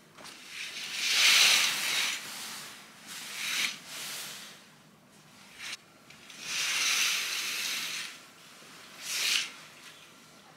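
Curtains being drawn open along their rail: four swishes of fabric sliding, two long ones and two short ones.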